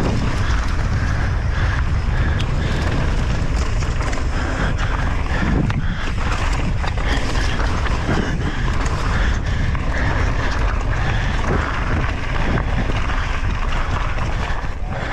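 Heavy wind buffeting the microphone over the rumble and rattle of a downhill mountain bike at speed on a dirt trail, with scattered sharp knocks from impacts.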